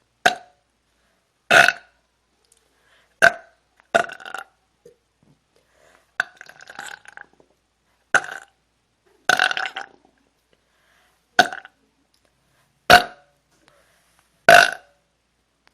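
A woman burping again and again: about ten short, loud burps one to two seconds apart, with one longer, quieter burp about six seconds in.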